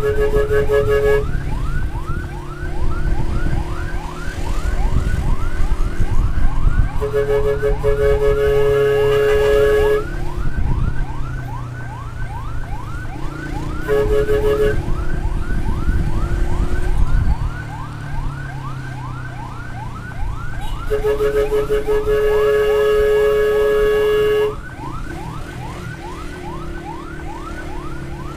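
Electronic siren in a fast yelp, about four rising-and-falling sweeps a second, with a steady horn-like tone sounding in several long blasts of one to three seconds over it. Underneath is a loud low rumble.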